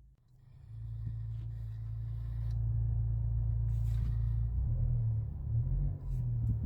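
Suzuki Swift Sport ZC33S running on the road, a steady low rumble that builds up over the first couple of seconds and then holds. The rattle being checked for is not heard.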